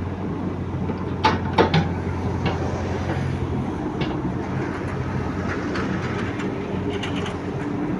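Caterpillar 312 excavator's diesel engine running steadily, with sharp metallic clanks a few times: a cluster about a second in, another around four seconds and a couple near seven seconds.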